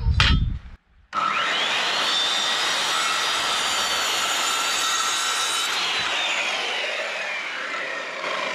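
A knock, then a corded circular saw starting with a rising whine and cutting through a small wooden block. About six seconds in the trigger is let go and the whine falls as the blade coasts down.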